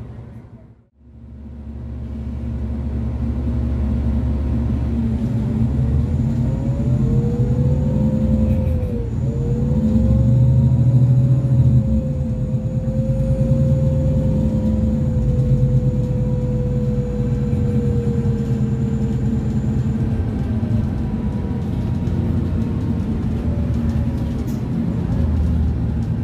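Scania N280UB city bus with a CNG engine and Voith DIWA automatic gearbox, heard from on board as it drives. The sound drops out briefly near the start, then returns as a steady low engine rumble. Over it a whine rises in pitch, dips for a moment, then slowly falls away.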